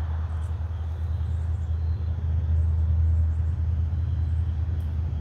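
A steady low hum, with faint high chirps now and then.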